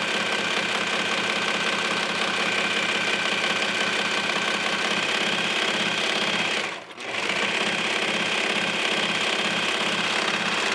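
Brother Pacesetter PS5234 serger running steadily at speed, stitching a four-thread overlock seam through knit fabric while its knife trims the edge. The whir briefly cuts out about seven seconds in.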